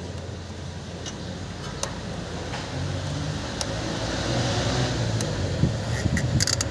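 Steady low machine hum, with a few light metallic clicks of hand tools and parts at the engine's crankshaft pulley and a quick run of clicks near the end.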